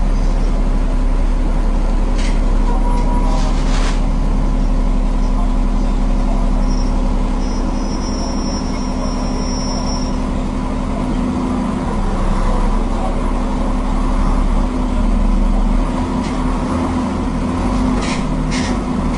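Diesel engine of an Alexander Dennis Enviro 400 double-decker bus running under way, heard from inside the upper deck. Its note shifts in pitch partway through. A few short sharp hisses or rattles come near the start and again near the end.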